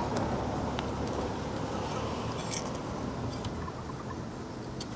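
Faint clicks and scrapes of a small garden trowel digging in loose soil, and hands pressing the soil down around a seedling. Road traffic noise fades over the first couple of seconds.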